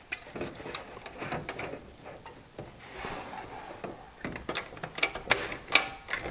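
Plastic and metal parts of a PC case's drive bay being handled: a run of small clicks, rattles and knocks, with a few sharper clicks about five seconds in.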